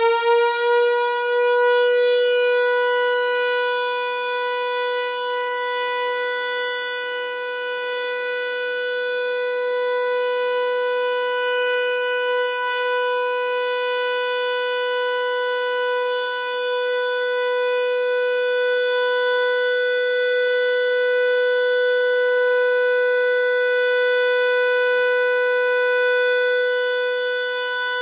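Hörmann HLS 373 high-performance civil-defence siren, already up to full pitch, holding one steady, unwavering tone with a long series of overtones: the continuous steady-tone pattern of the German all-clear (Entwarnung) signal.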